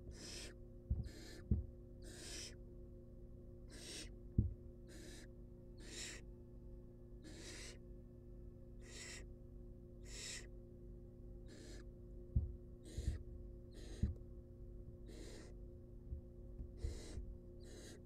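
Barn owl nestlings begging for food with raspy, hissing 'snore' calls, each about half a second long and repeated roughly once a second, as the adult feeds them. Scattered low thumps come from the birds moving on the floor of the wooden nest box, the loudest about four seconds in, over a steady electrical hum.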